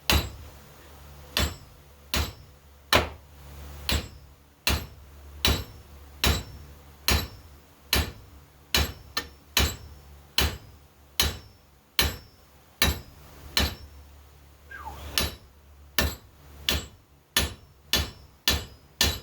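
Hammer blows on a red-hot solid mild-steel rivet, peening its end over into a head to fix a brake lever on a Model A brake cross shaft. The strikes come steadily, a little more than one a second, each a sharp metallic knock with a brief ring, with a short pause about two thirds of the way through.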